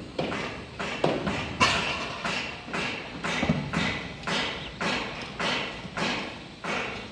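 Footsteps on a hard floor, about two and a half steps a second, each step followed by a short echo.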